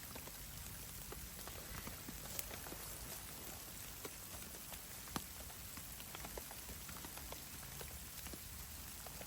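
Precipitation pattering on a surface: scattered, irregular soft ticks over a steady hiss, with two sharper clicks about two and a half and five seconds in.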